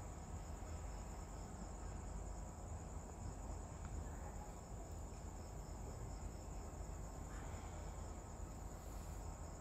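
Faint, steady background: a continuous high-pitched trill of crickets over a low hum.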